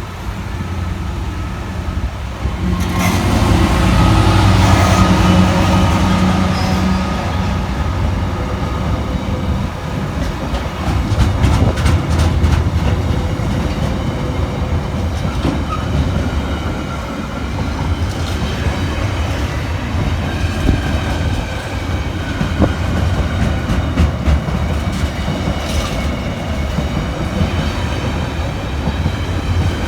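A train running past on the main line, loudest a few seconds in, its wheels clicking over the rail joints as it goes by.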